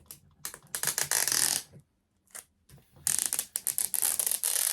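Clear plastic sheeting being pulled and stretched tight over a foam board. It gives two bursts of rapid, rasping crackle, a short one about a second in and a longer one near the end.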